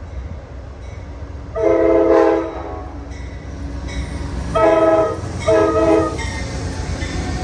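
Amtrak GE P42DC locomotive's air horn sounding a multi-note chord in three blasts: one of about a second, then two shorter ones close together. A steady low rumble of the passing train runs underneath.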